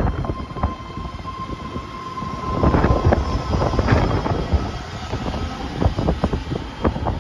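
BART train rolling out along the station platform, its wheels clicking over the rails. A steady high whine runs through the first few seconds, and the train is loudest about three to four seconds in.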